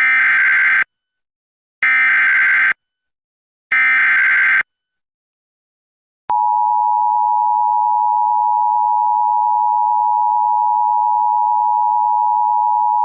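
Emergency Alert System activation: three bursts of SAME header data, the screechy digital tones, each just under a second long. About 6 seconds in comes the steady two-tone EAS attention signal (853 and 960 Hz), announcing a severe thunderstorm warning.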